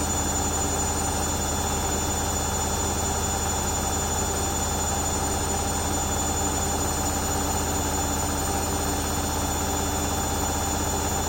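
Hoover Dynamic Next washing machine in its final spin at 1000 rpm, the drum holding a constant speed: a steady low hum and whine that does not change in pitch.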